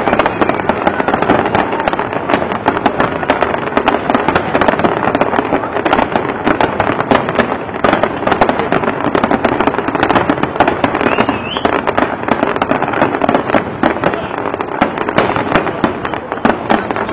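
A fireworks display: a rapid, continuous barrage of shell bursts, bangs and crackling, with a brief wavering whistle about eleven seconds in.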